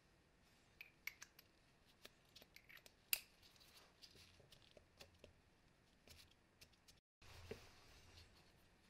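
Faint scattered clicks and ticks of steel tweezers touching the metal piston and gear housing of a hammer drill, with near-silent room tone between them; one sharper click about three seconds in.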